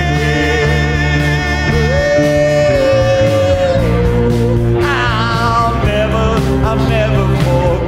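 Background music: a song with a singing voice over instrumental backing, the voice holding one long note about two seconds in.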